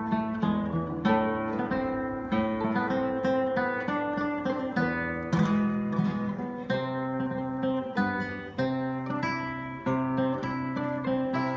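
Live acoustic ensemble music: an acoustic guitar plucks and strums chords while a violin bows a melody over it.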